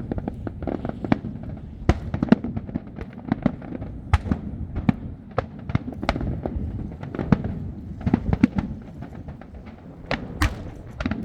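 Fireworks going off in quick succession: a dense run of sharp cracks and bangs, several a second, over a continuous low rumble of bursting shells.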